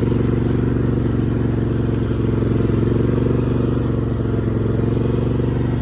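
Craftsman riding mower's Kohler 22-horsepower V-twin engine running steadily as the mower is driven.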